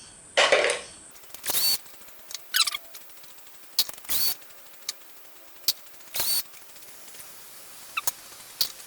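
Small metal parts (nuts, bolts, washers and spacers from a hedge trimmer's blade assembly) being handled and set down: a series of short, sharp clicks and scrapes, roughly every one to two seconds.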